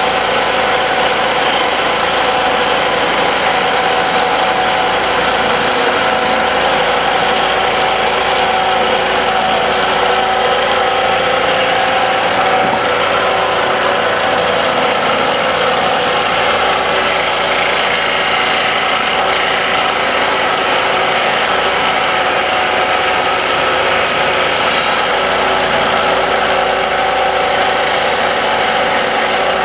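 Wood lathe running, its motor giving a steady hum, while a tool scrapes against the spinning wood. Near the end a little more hiss joins the scraping.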